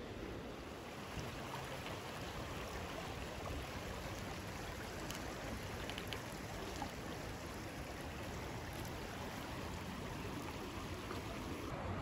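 Rushing water of a fast, shallow creek flowing over and around rocks: a steady, even rush, with a few faint ticks about halfway through.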